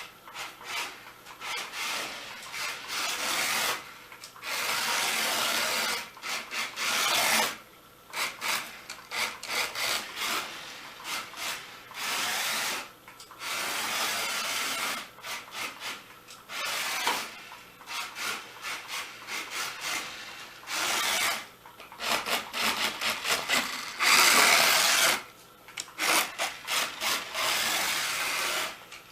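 Toy remote-control car's small electric motor and plastic gears whirring in stop-start spurts as the throttle is pressed and released. Longer runs of a second or two alternate with rapid short blips.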